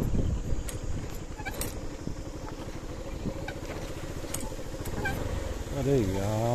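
A motorcycle engine running at low speed as it rides over a rutted dirt track, with scattered clicks and rattles from the bike. Near the end a drawn-out pitched call rises and falls for about a second.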